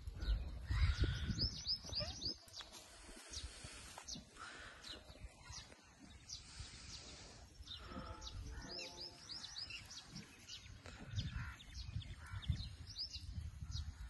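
Small birds chirping outdoors: quick runs of short, high, falling chirps, with single chirps in between. Low rumbling sits underneath, strongest near the start and again near the end.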